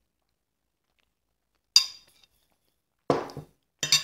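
A metal fork clinking against a plate three times, the second clink fuller and heavier than the others.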